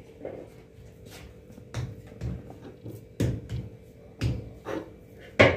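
Irregular soft knocks and pats, about seven of them, the loudest near the end: balls of semolina dough and a wooden rolling pin being handled on a rolling board and brass tray.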